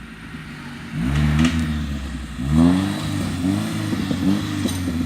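Off-road vehicle's engine revving in a series of throttle blips, starting about a second in, as it works over steep terrain.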